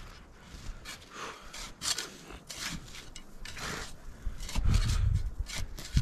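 Small sapper shovel digging into packed snow: a series of short crunching scrapes, roughly one or two a second, as snow is hacked loose and scooped out. A heavier low rumble comes in over the last second and a half.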